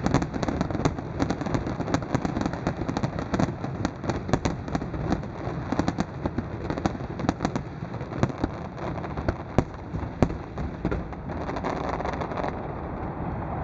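Fireworks display going off: a dense run of bangs and crackling bursts that thins to scattered reports and then stops. A steady rushing noise rises near the end.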